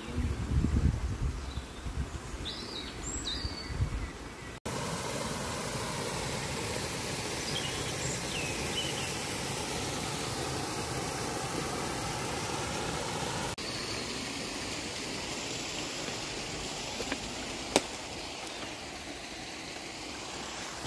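Running water of a woodland stream and small weir, a steady rushing hiss, with a few bird chirps. The sound changes abruptly twice, with low rumbles in the first few seconds and a single sharp click near the end.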